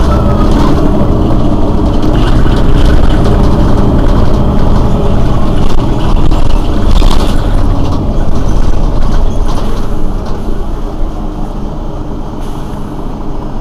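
Mercedes-Benz Citaro city bus's rear-mounted engine idling while the bus stands still, a loud, steady deep rumble that drops in level about ten seconds in.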